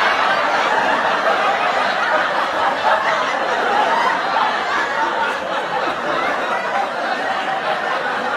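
Sitcom laugh track: a studio audience laughing together, with applause mixed in, as one dense, continuous crowd sound.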